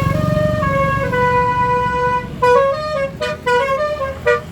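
Bus basuri telolet horn, a set of multi-trumpet air horns, playing a tune: a few held notes, then from about halfway a quicker run of short notes, over a low engine rumble.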